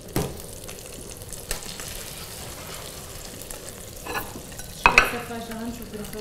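Dried chilies, butter and paprika frying in oil in a small enamel pot as homemade chili oil: a steady sizzle, with a spoon stirring and lightly clicking against the pot. A brief louder sound comes about five seconds in.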